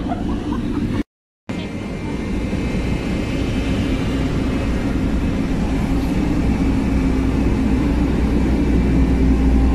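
Steady mechanical drone of a large ship's engines and machinery, heard on the open deck: a held hum over a deep rumble. It drops out for a moment about a second in, then slowly grows louder, the rumble strongest near the end.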